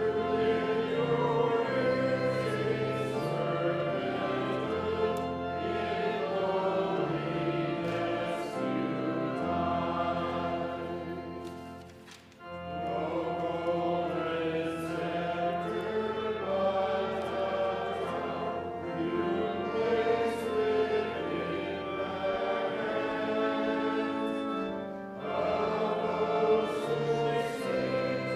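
A congregation singing a hymn with organ accompaniment, the organ holding long, steady bass notes under the voices. There is a short break about twelve seconds in, between lines or verses.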